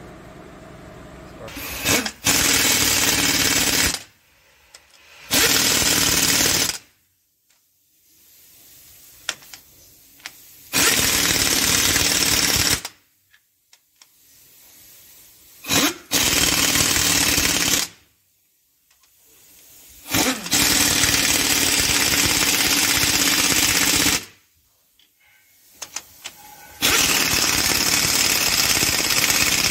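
Impact wrench hammering in six bursts of a couple of seconds each, with short pauses between them, as it runs down and tightens cylinder head bolts one after another.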